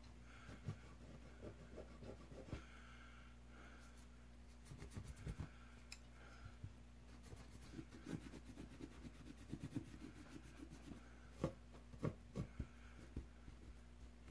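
Faint rubbing and scraping as the cushioned vinyl handles of a pair of Channellock pliers are cleaned, broken by scattered small clicks and knocks of handling, over a steady low hum.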